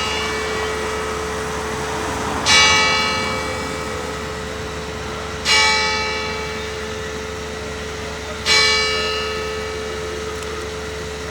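A single church bell tolling, struck three times about three seconds apart. Each stroke rings on and fades slowly over a lingering hum. It is the bell rung to call the people to mass.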